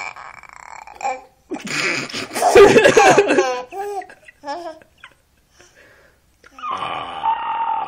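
Laughter and a 7-month-old baby's vocal noises: a loud burst of laughing about two seconds in, a few short sounds around four seconds, then a long drawn-out sound starting near the end.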